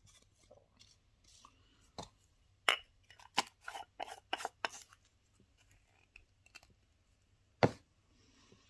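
Small jars of nail powder clicking and knocking as a lid is screwed on and the jars are picked up and set down among others. A scatter of sharp clicks clusters between about two and five seconds in, and one louder knock comes near the end.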